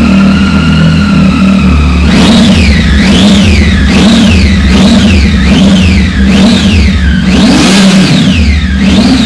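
Triumph Tiger 800 XR's three-cylinder engine breathing through an Arrow aftermarket exhaust. It idles, then from about two seconds in is blipped in about nine quick revs, one of them longer near the end, before dropping back toward idle.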